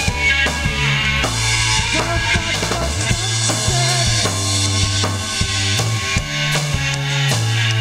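Rock band playing live: drum kit with bass drum and snare hits, electric bass holding low notes that shift pitch every second or so, and electric guitars and keyboards.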